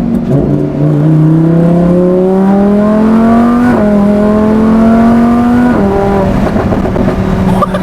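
Lamborghini Huracán's 5.2-litre naturally aspirated V10 accelerating hard, its pitch climbing. The dual-clutch gearbox shifts up about four seconds in, and the pitch climbs again. The driver lifts off around six seconds in and the exhaust goes pop pop pop on the overrun.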